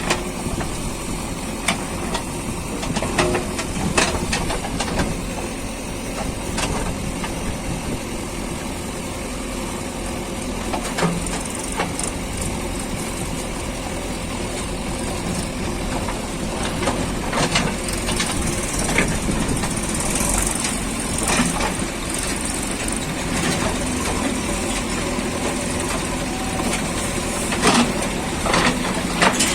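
JCB 3DX backhoe loader's diesel engine running steadily, with occasional sharp knocks and clanks from the machine as it works.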